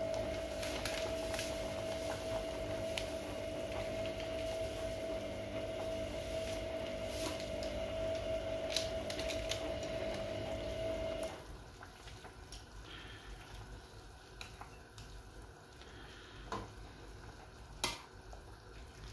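A pot of fish soup boiling on a stove, with scattered clicks and knocks of a metal ladle and pot. A steady mechanical hum runs under it and drops away about eleven seconds in.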